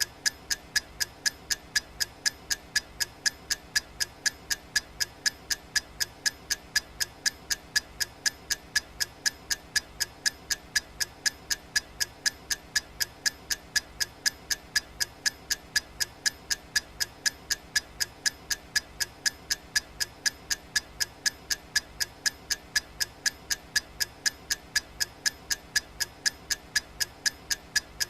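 Clock-ticking sound effect of a countdown timer: sharp, bright, evenly spaced ticks, about three a second, keeping a steady rhythm throughout.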